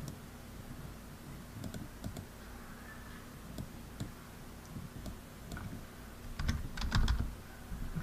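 Scattered light clicks and taps of sleeved trading cards being handled and set down on a table playmat, with a cluster of louder knocks and thuds against the table about six and a half to seven seconds in.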